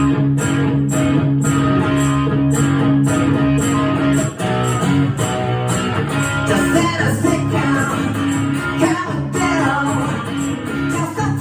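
Live song with a guitar strummed in a steady rhythm over sustained chords; a wavering melody line comes in about halfway through.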